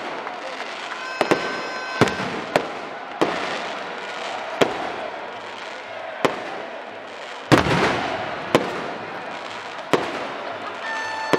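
Fireworks and firecrackers banging about once a second over the steady din of a celebrating stadium crowd, the loudest a longer blast a little past halfway. Brief steady tones, like horns or whistles, sound near the start and again near the end.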